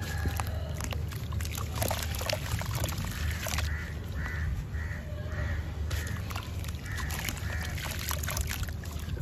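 Hands squeezing and crumbling a wet sand-cement chunk in a tub of water: water sloshing and splashing with gritty crackles and crunches. From about three seconds in, a bird calls in a string of short calls, about two a second, for some four seconds.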